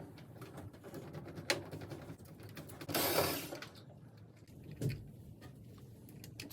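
Small handling sounds from work on a dryer's timer switch: a few sharp clicks and a short scraping rustle about three seconds in, over a faint low hum.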